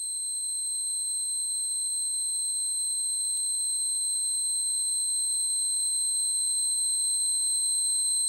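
A steady high-pitched electronic sine tone with a fainter higher overtone, like a test tone, swelling in over the first moments and then held unchanged, with a single faint tick about three and a half seconds in.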